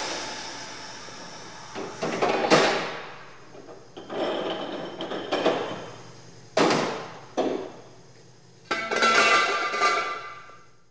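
Auto repair shop tool work: a run of irregular metal clanks and hammer-like blows, each one ringing out. The last, near the end, rings longer with a metallic tone before fading away.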